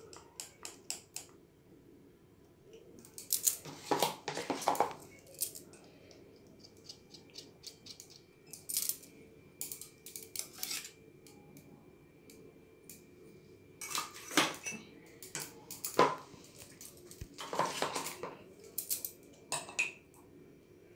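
Metal spoon clinking and scraping against a ceramic mug and a mixing bowl while scooping thick beaten coffee mixture into the mug. Scattered single clinks, with longer bouts of scraping about four seconds in, around fourteen seconds, and again near eighteen seconds.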